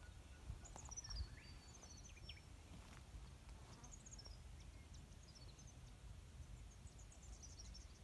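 Faint, high-pitched chirps and twitters of small birds, coming in several short bursts, over a low steady rumble.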